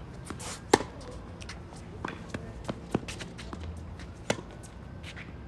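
A series of irregular sharp clicks and knocks, the loudest a little under a second in, over a low steady background hum.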